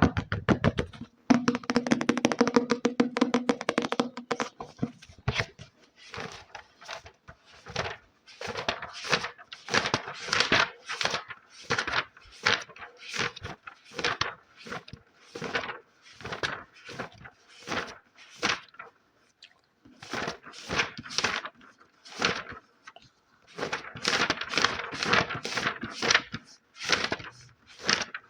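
Fingers tapping quickly on a book for the first few seconds, then a long run of short dry scratching strokes, a few each second, with brief pauses between runs.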